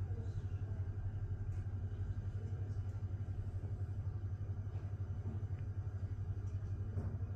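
A steady low rumble with a fast, even flutter in its loudness.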